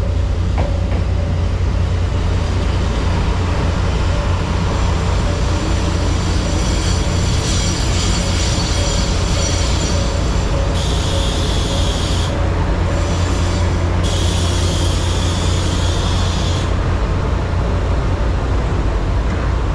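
JR Kyushu KiHa 185 series diesel express train pulling into the platform, its engines and wheels giving a steady deep rumble as the cars pass close by. In the second half, two spells of high squealing as it brakes to a stop.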